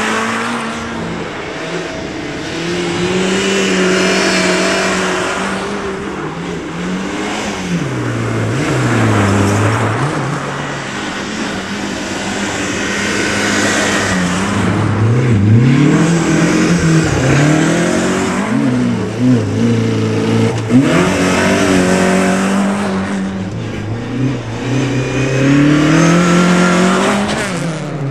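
Rally cars passing one after another on a snowy gravel stage, their engines revving hard. The pitch keeps dropping and climbing as the drivers lift off and change gear through the corner.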